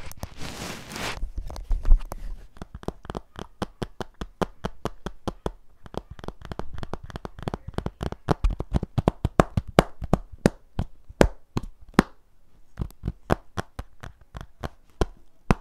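Fingers tapping quickly and unevenly on a hard object close to the microphone: many small, sharp clicks, several a second.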